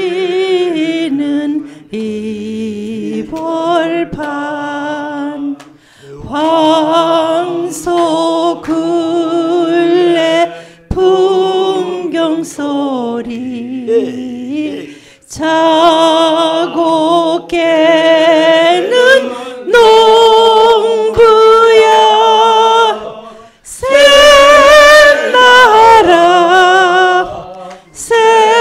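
A woman singing a Korean song unaccompanied into a microphone: long held notes with vibrato, in phrases broken by short pauses for breath every few seconds.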